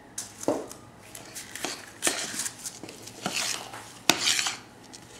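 A spoon scraping and clinking against a stainless steel saucepan as thick batter is scooped out to fill muffin cups. There are several separate scrapes and clinks, the sharpest one about four seconds in.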